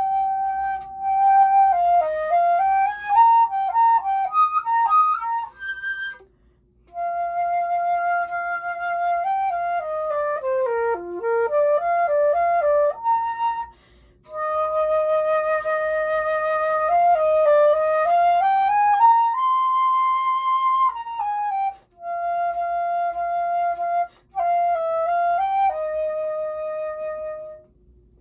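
Silver concert flute played solo and unaccompanied: a melodic line of held and moving notes in phrases of a few seconds, with brief pauses between them.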